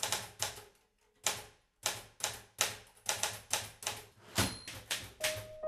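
Manual typewriter typing: type bars striking the paper in an uneven run of sharp clacks, a few a second with short pauses between. A little past four seconds comes a louder strike with a brief high ring, and near the end a steady tone comes in under the typing.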